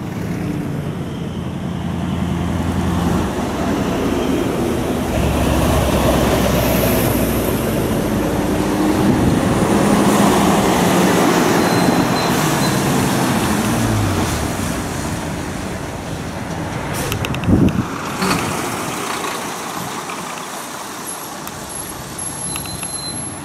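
Heavy trucks passing one after another, their diesel engines running with tyre and road noise, swelling as each goes by and fading near the end. A few sharp clacks are heard about three-quarters of the way through.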